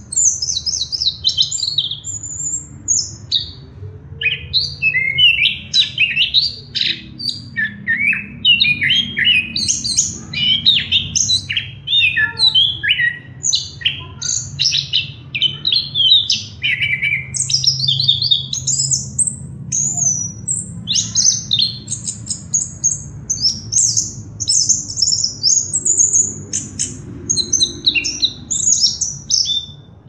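Chestnut-capped thrush (anis kembang) singing a continuous, fast, varied song of high chirps, trills and whistles with hardly a pause. A low steady hum runs underneath.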